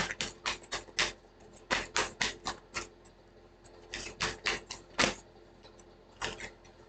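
A deck of cards being shuffled by hand: quick runs of light card slaps, about five a second, in three or four bursts with short pauses between.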